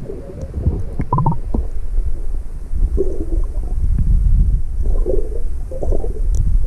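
Muffled underwater sound picked up by a camera held beneath the water: a low rumble of water moving around the housing, with bubbling gurgles and a few small knocks.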